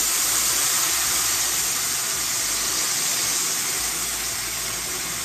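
Blended green salsa poured into hot oil in a frying pan, frying with a loud, steady sizzle that slowly fades; the oil is hot enough to raise a lot of smoke.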